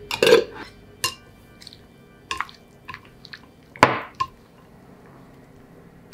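Chopsticks clinking and knocking against a glass mixing bowl while cubes of chicken breast and deep-fried tofu are tossed in potato starch. There are a few sharp separate clinks, the loudest just after the start and again a little before four seconds in.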